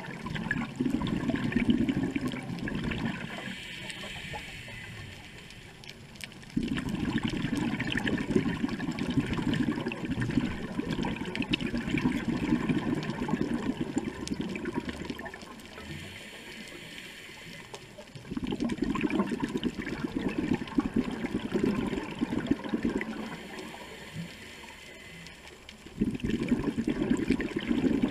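Exhaled bubbles from a scuba diver's regulator, gurgling out in four long bursts, one per breath, with quieter stretches between them while the diver inhales.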